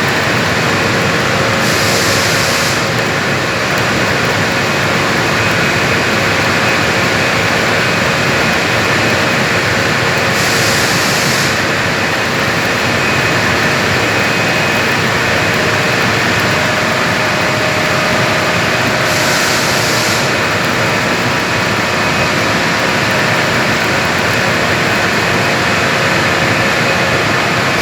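Arc welding on a galvanised steel pipe: a steady, dense crackle and hiss with a faint machine hum underneath. A brighter high hiss surges for about a second roughly every nine seconds.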